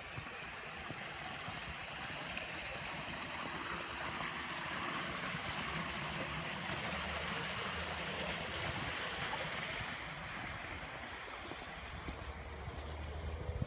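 Water running and splashing in a rock-lined garden pond, a steady rushing that grows louder through the middle and fades near the end. Wind rumbles on the microphone toward the end.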